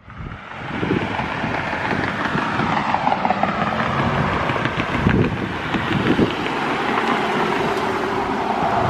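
A car's engine and road noise, running steadily after fading in over the first second.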